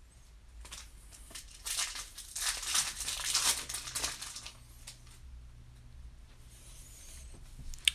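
Foil wrapper of a trading-card pack crinkling and tearing as it is ripped open, loudest from about two to four seconds in. A few light clicks come before and after, and there is a sharp click near the end.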